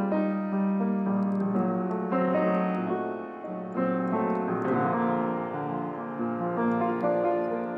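Solo grand piano played in a steady flow of held notes and chords.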